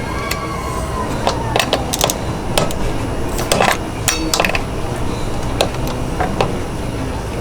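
Hand tools working on scooter hardware: a string of sharp, irregular metallic clicks and clinks as bolts are tightened, over a steady low background hum.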